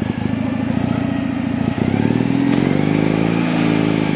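Petrol engine of a lure-coursing machine idling, then revving up with a rising pitch about two seconds in and holding at higher revs as the lure is set running.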